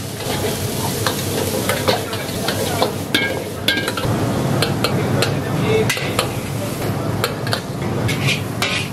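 Chopped vegetables sizzling as they are stir-fried in a wok, with a steel ladle scraping and knocking against the pan in sharp, irregular clinks.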